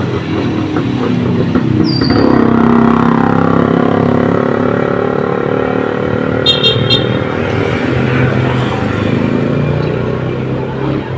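A motor vehicle engine passing close by, its pitch falling about two seconds in, then running on steadily.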